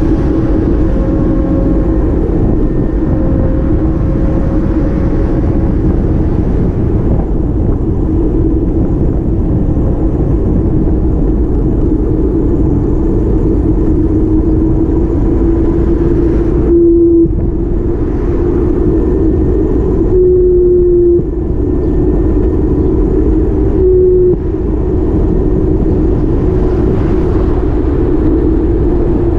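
A vehicle's engine running steadily under low road and wind rumble, its drone slowly rising in pitch, with three brief jumps in pitch in the second half.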